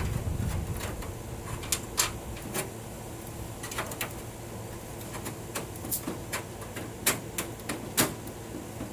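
Irregular clicks and knocks of an aluminum awning piece being handled and slid into its mounting track.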